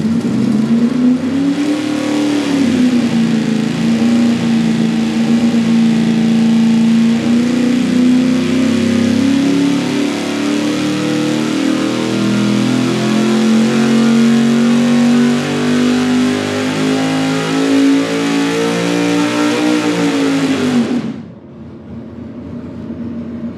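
Engine on a dynamometer under wide-open-throttle load during a power pull, fitted with solid roller lifters on a hydraulic roller camshaft. Its pitch rises briefly at the start, then climbs slowly and steadily as the rpm sweeps up, and the sound drops away suddenly about 21 seconds in when the pull ends, leaving a quieter running engine.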